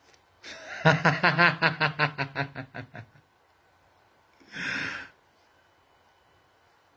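A woman laughing: a quick run of about a dozen 'ha' pulses that tails off, then a short breathy burst about four and a half seconds in.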